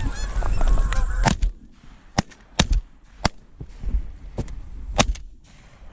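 A volley of about six shotgun shots, sharp cracks spread over about four seconds, fired at a flock of Canada geese. The geese are honking just before the first shot.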